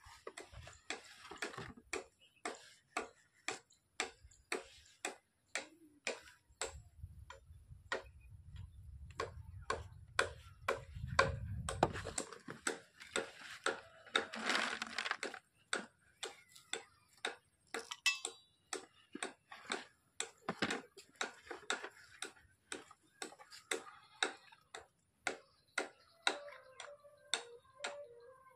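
Steady, even clock-like ticking, about two ticks a second.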